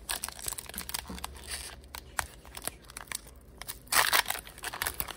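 Foil wrapper of a Donruss basketball card pack crinkling and tearing as it is pulled open by hand, with a louder burst of crackling about four seconds in.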